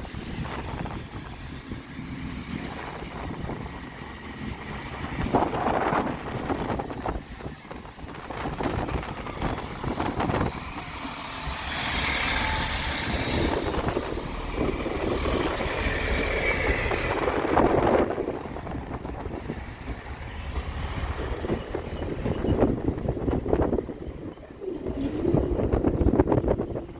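Strong gusty wind buffeting the microphone, rising and falling in irregular gusts with a louder hissing rush about twelve seconds in.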